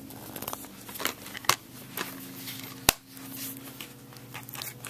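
Plastic DVD case being handled: a few scattered clicks and one sharp snap about three seconds in.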